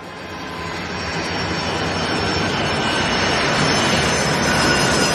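Jet airplane engines: a steady noise that swells up over the first couple of seconds and then holds, with a faint high whine above it.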